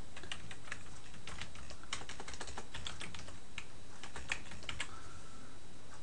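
Typing on a computer keyboard: irregular keystroke clicks over a steady background hiss.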